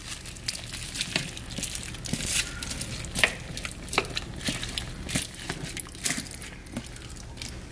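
Plastic spoon stirring a chunky oxtail, potato and carrot stew in a slow cooker lined with a plastic bag: irregular wet clicks and scrapes as the chunks knock together, with the liner crinkling.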